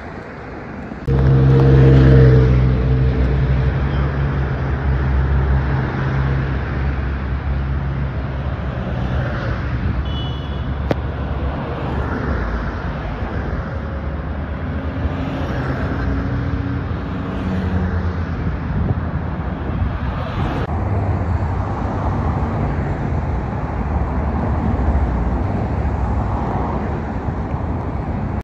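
Road traffic on a busy multi-lane road, cars passing one after another. A heavy engine comes in loudest about a second in and fades over several seconds as it passes.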